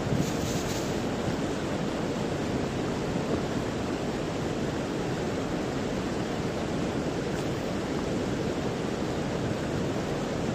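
Fast river water rushing and churning past a concrete wall: a steady, even wash of noise.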